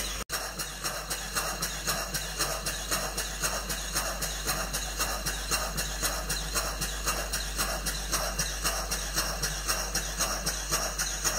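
Restored horizontal model steam engine with a 30 mm bore running steadily, its exhaust puffing in an even rhythm of about three beats a second.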